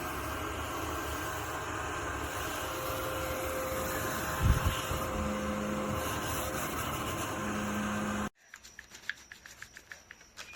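Mini desktop crumb-sweeper vacuum cleaner running with a steady whir, with a short thump about four and a half seconds in. The whir stops abruptly about eight seconds in, leaving a few faint clicks.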